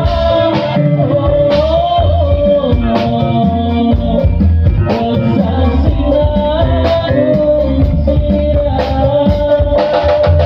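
Amplified live dangdut band playing: an electronic keyboard carries the melody in long, bending notes over bass and a steady drum beat.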